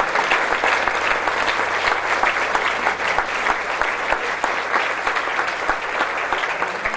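Concert audience applauding after a song: many hands clapping together, beginning to die down near the end.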